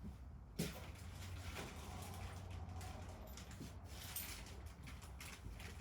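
Faint handling noises as small hydraulic fittings and parts are picked up and tried, with scattered light clicks and rustles and one sharper click about half a second in, over a steady low hum.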